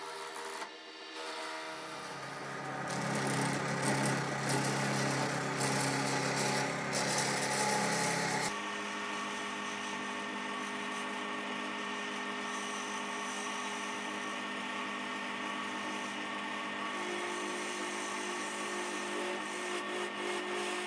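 Wood lathe running with a steady motor hum while a turning gouge cuts a spinning wooden spindle, peeling off shavings with a rough scraping sound. The cutting is loudest from about two to eight seconds in, then changes suddenly to a steadier, lighter cut.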